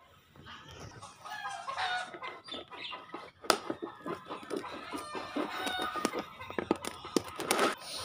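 Fowl clucking in short, broken calls, with a rapid run of sharp clicks from about halfway in as a vinyl floor mat is cut with a blade.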